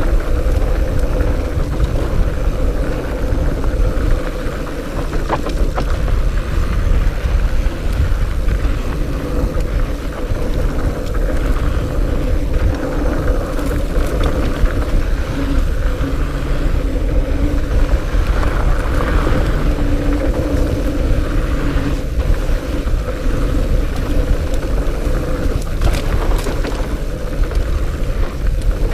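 Fat bike riding down a dirt trail: wind rushing over the microphone and a continuous tire rumble, with a steady hum and a few sharp knocks from bumps.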